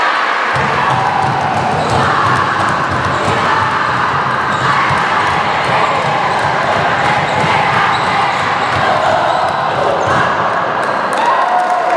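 Crowd in a large hall cheering and shouting after a won sepak takraw match, over a rapid run of low thuds that starts about half a second in and stops near the end.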